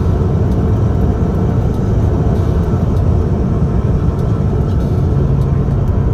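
Car driving at speed, heard from inside the cabin: steady road and engine noise.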